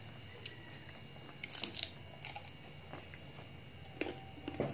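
A crunchy bite into a slice of raw green mango about a second and a half in, followed by chewing with a few softer crunches.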